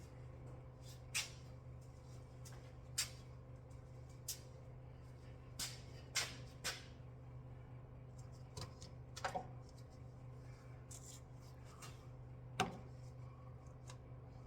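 Scattered light clicks and knocks of tools and car parts being handled during a CV axle removal, about ten in all at uneven intervals, over a faint steady low hum.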